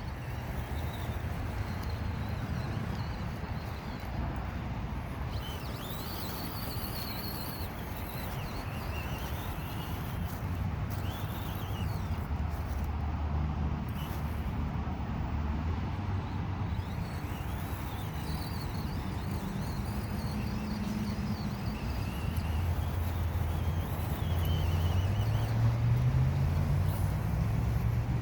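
Low rumble of motor-vehicle traffic, with an engine hum that grows louder over the last few seconds, and faint bird chirps through the middle.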